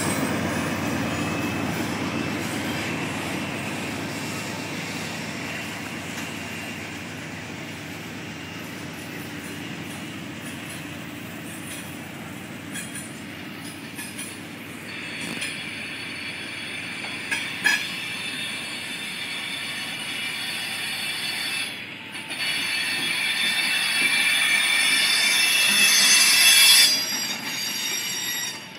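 A Norfolk Southern freight train passing: the diesel locomotive's low rumble fades over the first several seconds, then the freight cars roll by. From about halfway through, the wheels squeal steadily on the rails, getting louder until they drop off just before the end, with a few sharp clanks.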